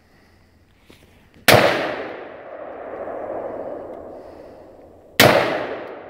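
Two rifle shots from a Smith & Wesson M&P15 AR-15 rifle, about four seconds apart. Each crack is followed by a long echo that rolls back through the woods.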